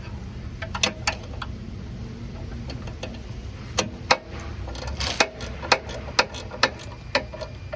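Sharp metallic clicks, about ten, irregularly spaced and some in close pairs, from a wrench and the belt tensioner being worked on a Krendl 2800-G insulation blowing machine, over a steady low hum.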